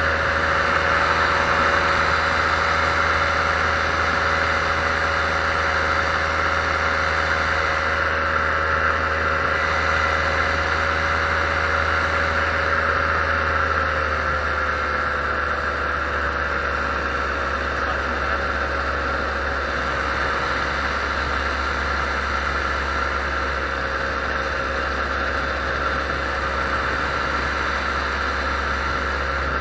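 Paramotor engine and propeller running steadily in flight, its pitch easing slightly lower about halfway through as the throttle comes back a little.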